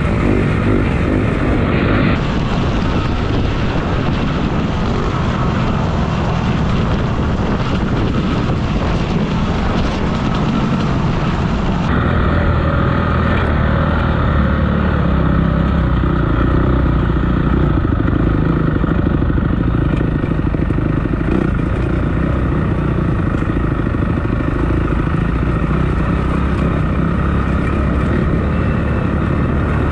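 Dirt bike engine running as the bike is ridden, steady and loud throughout, with abrupt changes in tone about two seconds and twelve seconds in.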